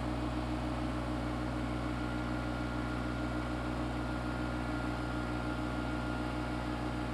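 Tractor engine running steadily, an even hum that holds at one pitch.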